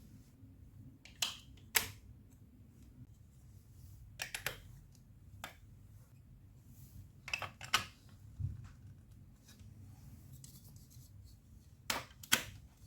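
Hard plastic clicks and clacks of Lego Duplo blocks being handled and pressed together, several coming in quick pairs a few seconds apart, with one duller knock about eight seconds in.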